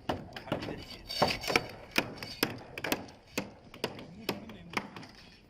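Hammer striking wood over and over, about two blows a second in an uneven rhythm, some with a short ring.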